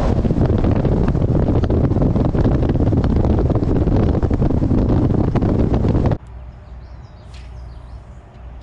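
Heavy wind buffeting the microphone over the run of a bass boat at speed, loud and rushing with crackling gusts. About six seconds in it cuts off abruptly to a much quieter background with a few faint high chirps.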